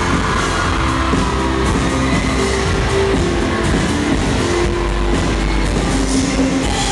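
Live rock band playing loudly: electric guitars, drums and keyboard together in a dense, unbroken wash of sound.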